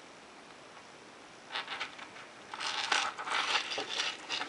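Handling noise from a digital wristwatch with a stainless-steel link bracelet: a few small clicks about a second and a half in, then about two seconds of dense rustling and light metallic clinking as the watch and bracelet are moved in the hands.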